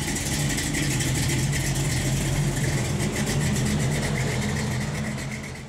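Car engine running steadily with a fast, even firing beat, fading out near the end.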